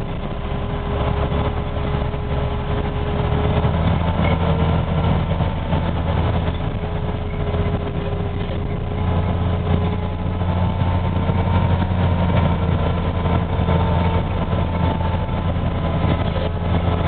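Trail-grooming snowcat's engine running steadily as a low drone, with a faint steady whine above it.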